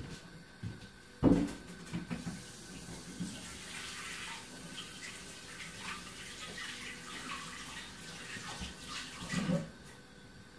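Kitchen tap running into a sink for about five seconds. A loud thump comes about a second in, and another just before the water stops near the end.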